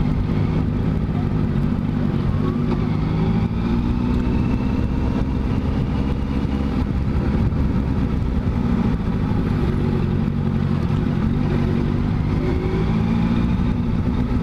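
Honda CBR 650F's inline four-cylinder engine running as the motorcycle rides at low speed. Its pitch rises and falls a few times with the throttle.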